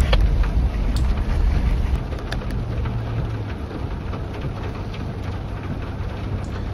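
Rain on a Toyota LandCruiser 70 Series' roof and windscreen heard from inside the cabin, over the low sound of its engine running as it creeps down a wet, muddy track. The low engine rumble eases about two seconds in, and a few light clicks of drops or knocks come through.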